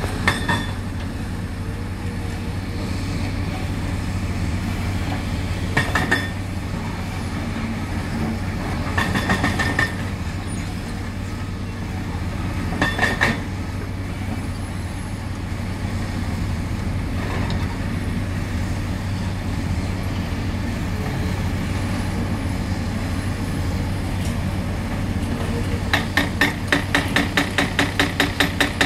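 CAT excavators' diesel engines running steadily, with a few short clanks of concrete rubble being moved. About three seconds before the end, the CAT 336F's Atlas Copco hydraulic hammer starts pounding the concrete of an old bridge, about four blows a second.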